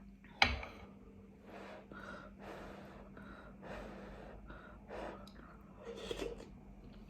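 A person eating spicy noodles close to the microphone: a sharp click about half a second in, then a run of short breathy gasps and sucking sounds between mouthfuls.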